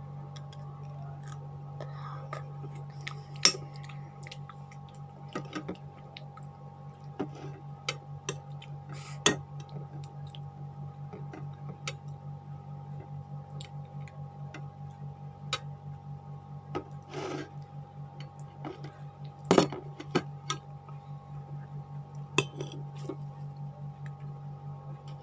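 Eating sounds: a metal spoon clicking and scraping on a glass plate, in scattered sharp taps with a few louder knocks, over a steady low hum.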